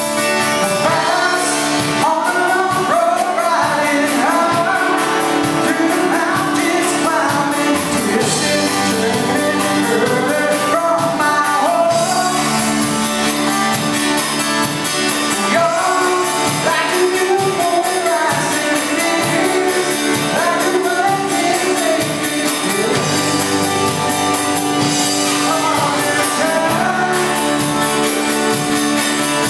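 Live rock band playing: a lead voice singing over electric guitar and a steady beat.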